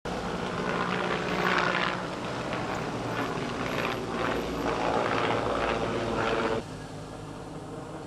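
Loud engine noise from heavy vehicles passing close by, swelling several times as they go past, then cutting off abruptly near the end.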